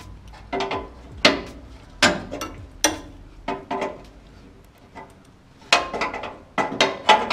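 Wrench working a line fitting at the bottom of an aluminium radiator: a series of sharp metallic clicks and clinks, irregularly spaced with a short pause midway.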